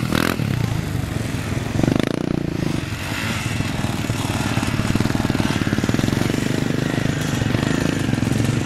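Yamaha off-road motorcycle engines revving as riders spin the rear wheel and slide across sand. There is a burst of throttle about two seconds in, then a steady, rapidly pulsing engine note.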